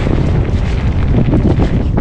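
Wind buffeting the microphone over a steady rumble of tyres on rough singletrack, with scattered rattles and knocks from a Specialized Levo e-mountain bike riding downhill.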